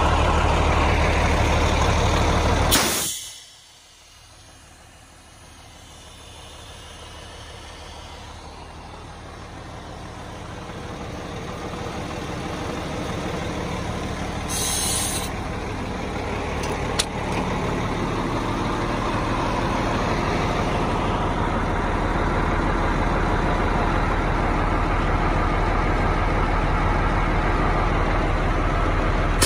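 Heavy diesel truck engine idling with a steady low rumble that cuts off abruptly about three seconds in. A quiet, even hiss follows and grows slowly louder, with a brief high hiss about fifteen seconds in.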